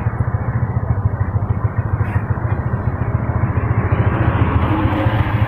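Strong wind buffeting the microphone: a loud, continuous low rumble that flutters rapidly.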